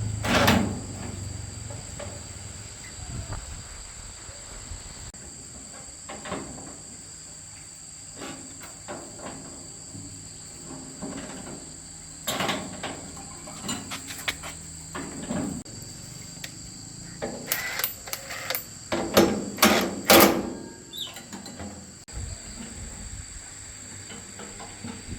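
Scattered knocks and clatters of work on a machine, with a cluster of louder sharp strikes about three-quarters of the way through, over a steady high-pitched chirring of crickets.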